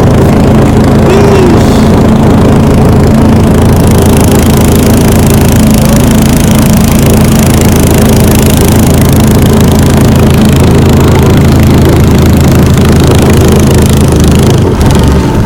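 A boat's engine running steadily at a constant speed, with a slight change in its sound about a second before the end.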